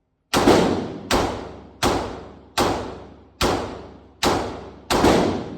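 Gunshots fired one at a time at an even, unhurried pace, about eight in all, each sharp crack followed by a long ringing tail off the walls of an indoor range.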